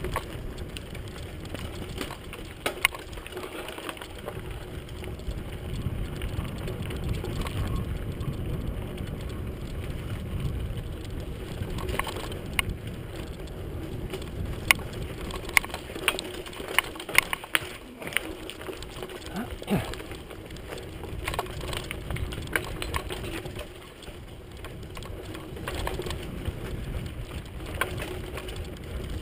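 Mountain bike riding fast down a dirt singletrack: a steady low rumble of wind and tyres, with sharp clicks and rattles from the bike over rough ground, thickest through the middle stretch.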